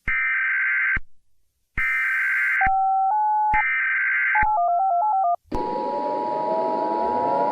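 Mock Emergency Alert System tones: three short bursts of screechy SAME header data, with long telephone touch-tone (DTMF) beeps between them and a quick run of touch-tones after the third burst. About five and a half seconds in, the steady two-tone EAS attention signal starts, with a swooping siren-like sound layered underneath.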